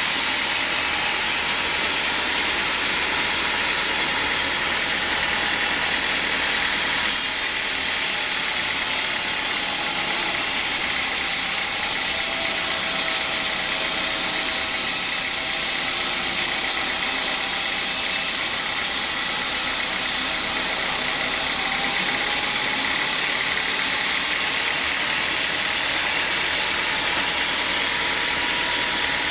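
Sawmill saw running steadily and cutting teak, with a brighter, hissier stretch from about seven seconds in until past twenty seconds.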